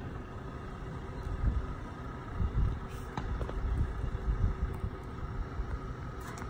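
Outdoor background noise: a low rumble that swells a few times, with a couple of faint clicks partway through.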